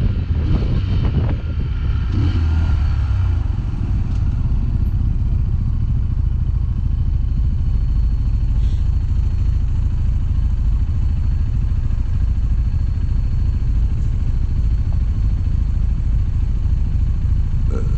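2021 Sinnis Terrain 125's small single-cylinder engine running under the rider. Its note falls over the first few seconds and then holds a steady low rumble.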